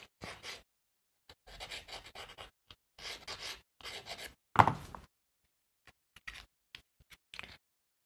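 Glue squeezed from a fine-tip plastic bottle as its tip scrapes along a wooden tag: soft scratchy rubs and sputters in short bursts. A louder brief sound a little past halfway, then a few light clicks near the end.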